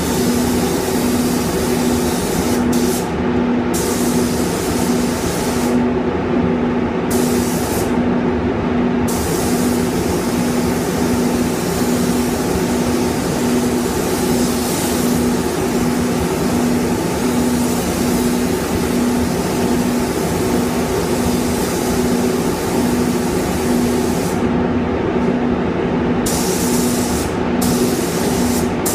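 Compressed-air hiss of a gravity-feed paint spray gun applying paint, in long bursts with several brief breaks where the trigger is released. Under it runs a steady hum that pulses regularly.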